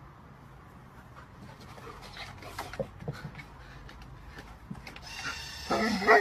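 Scattered light clicks of a dog's claws on wooden deck boards. Near the end a dog vocalizes in short pitched bursts, over a steady high whine that starts about five seconds in.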